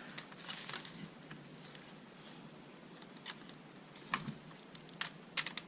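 Light, scattered plastic clicks and scrapes as the disc tray mechanism of an original Xbox disc drive is handled and pried at, with a small cluster of sharper clicks about four to five seconds in.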